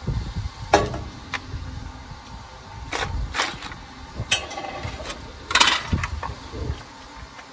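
Metal hand tools and a plastic tap-and-die case being picked up and set down on a steel workbench: half a dozen clatters and clicks, the loudest about a second in and again near the end, over a low steady rumble.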